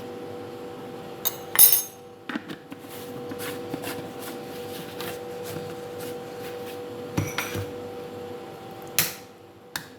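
Kitchen utensils knocking and clinking: a spoon tapping against a bowl and dishes while ingredients are added, with two louder knocks, about a second and a half in and near the end. A steady low hum runs underneath.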